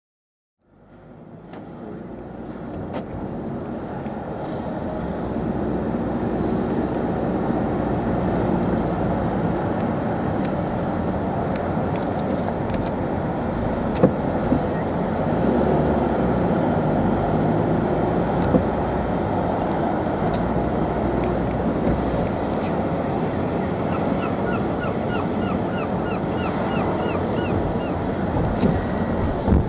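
Steady rumble and rushing noise aboard the cross-Channel ferry Pride of Burgundy, fading in just under a second in. Near the end comes a quick run of short, high rising chirps, about five a second.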